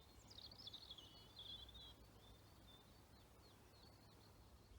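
Near silence with faint distant birdsong: high twittering chirps, busiest in the first two seconds and then scattered, over a low steady rumble.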